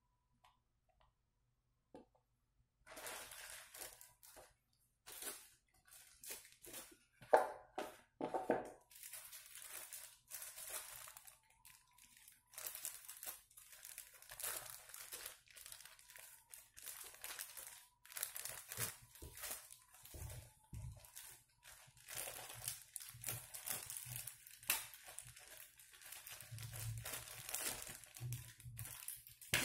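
Thin clear plastic bag around a new laptop crinkling and rustling in irregular fits as it is handled and pulled open, starting after a quiet first few seconds. A few soft low thumps come near the end.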